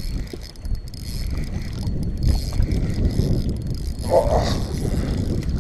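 Wind buffeting the camera's microphone as a steady low rumble, with a brief louder sound about four seconds in.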